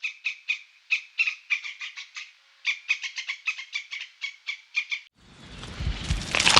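An animal's rapid series of short chirping calls, about four or five a second, broken by a brief pause a little after two seconds. The calls stop abruptly about five seconds in, and a loud, noisy sound without distinct calls takes over.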